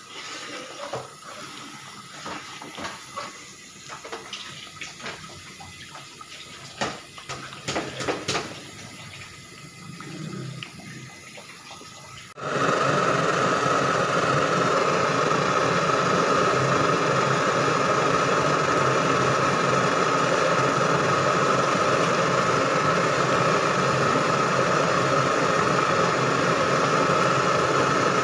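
A long metal spatula scrapes and knocks against a large metal pan while stirring thick coconut-milk rendang, in scattered clicks with a few louder knocks. About twelve seconds in the sound switches abruptly to a loud, steady rushing noise from the pan's burner and simmering coconut milk.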